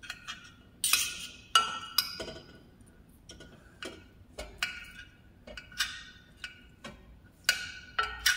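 Metal fork clinking and scraping against a glass baking dish while cooked chicken breast is cut into small pieces. The sharp clinks come at irregular intervals, about a dozen of them, each ringing briefly.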